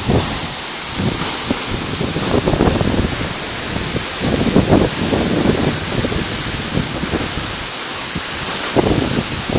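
Steady rushing of a waterfall, with irregular low gusts of wind buffeting the phone's microphone.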